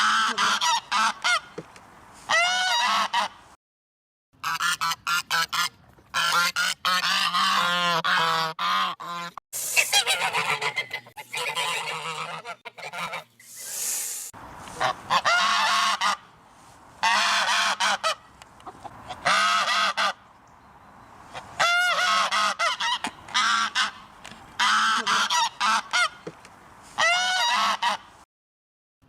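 Geese honking in runs of rapid, repeated calls, with abrupt short breaks about four and nine seconds in and near the end. A brief hiss comes about halfway through.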